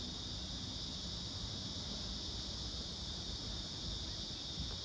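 Steady, high-pitched insect chorus droning without a break, over a low rumble.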